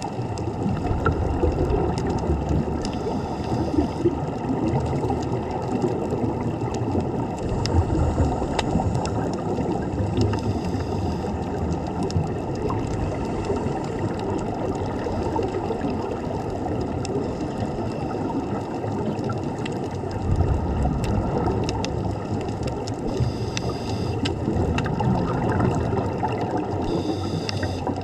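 A tugboat under way: steady churning and gurgling water with a low mechanical rumble.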